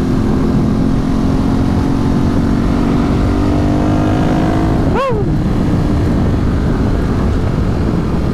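Ducati 848 Streetfighter's L-twin engine pulling under way, its pitch rising slowly. About five seconds in, the pitch jumps up and drops back quickly, then the engine runs steadier. Heavy wind and road noise on the rider's microphone underneath.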